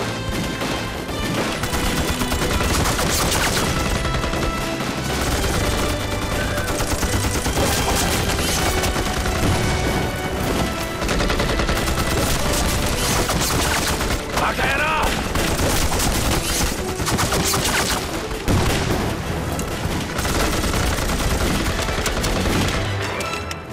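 Sustained battle gunfire: a dense fusillade of rifle and machine-gun shots.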